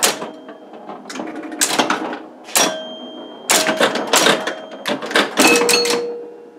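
Williams Aztec electromechanical pinball machine in play: a fast, irregular run of sharp mechanical clacks from bumpers, flippers, relays and score reels, with ringing tones sounding after several of the hits.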